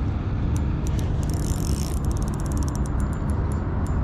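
Spinning reel's drag clicking in quick runs as a hooked fish pulls line off against it, over a steady low rumble.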